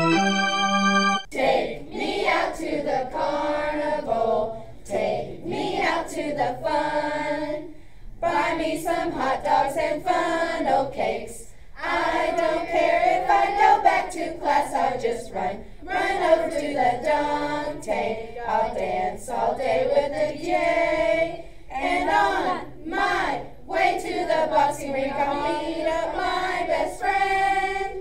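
Young voices singing a pop song together in unison, phrase after phrase with short breaks between the lines.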